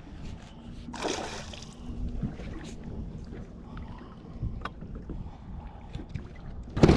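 Wind and water against a small fishing boat's hull, with a brief splash about a second in and loud splashing starting near the end as a hooked northern pike thrashes at the surface beside the boat.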